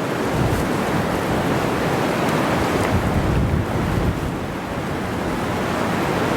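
Wind in a snowstorm buffeting the microphone: a steady rushing noise, heaviest in the low end, that swells and eases slightly.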